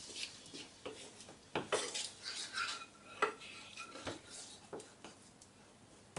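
A utensil stirring and scraping through diced red onion in an oil-and-vinegar dressing in a ceramic-coated frying pan: irregular soft scrapes and clicks against the pan, loudest about a second and a half in and just after three seconds.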